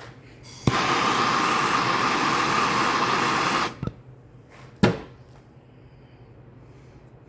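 A handheld torch lit with a click and burning with a steady hiss for about three seconds to melt-seal the cut end of a chainsaw starter rope, then shut off. A single sharp knock follows about a second later.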